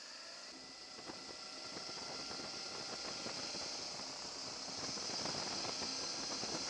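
Rushing wind and road noise from a Suzuki V-Strom motorcycle on the move, growing steadily louder, with a crackle running through it from about a second in.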